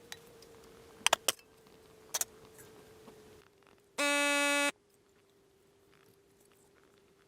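A few sharp clicks, then a loud electronic beep lasting about half a second, starting about four seconds in, over a faint steady hum.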